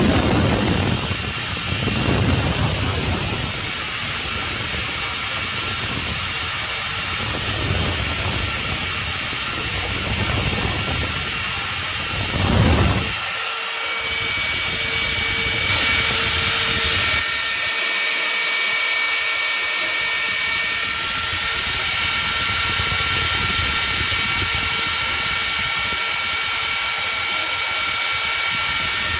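CNC router spindle running and cutting wood, a steady high whine over the hiss of the cut. About thirteen seconds in the lower rumble drops away suddenly and the steady whine carries on alone.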